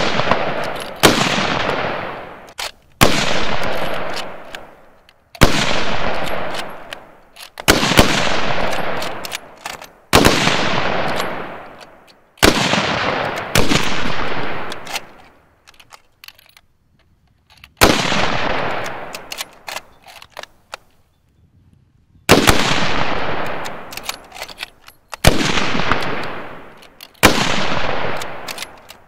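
.303 Lee-Enfield bolt-action rifles firing at a range: about a dozen loud shots at uneven intervals, each ringing out and fading over a second or two, with short pauses between strings.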